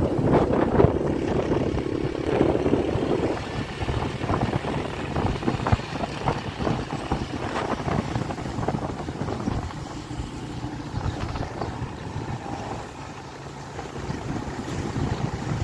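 Wind buffeting the microphone of a camera carried on a moving motorcycle, over the steady running of the motorcycle's engine.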